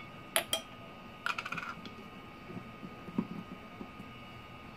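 Light clinks and taps of a metal tablespoon while vanilla extract is measured out: two quick ringing clinks, a short rattle of clinks about a second and a half in, then a few faint taps.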